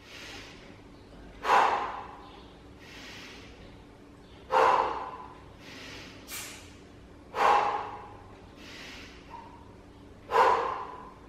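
A man breathing out hard four times, about three seconds apart, once with each repetition of a kettlebell lift. Each breath starts sharply and fades quickly, with a softer breath in between them.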